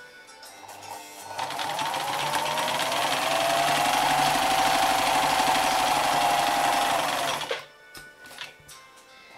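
Freshly serviced Bernina 530 sewing machine running a sewing test: it starts about a second in, its motor whine rising as it speeds up, then runs fast and steady for several seconds with a rapid even stitching rhythm, and stops near the end.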